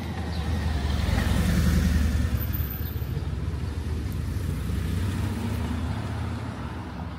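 A motor vehicle passing close by on the road: low engine rumble and road noise swell to a peak about two seconds in, then slowly fade.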